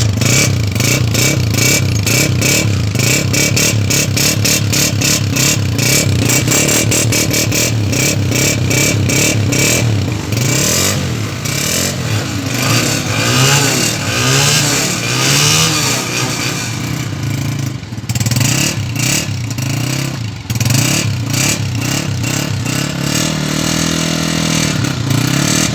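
Honda CG125's single-cylinder four-stroke engine running loudly. In the middle the throttle is blipped again and again, so the pitch rises and falls, then it drops back with a couple of brief dips.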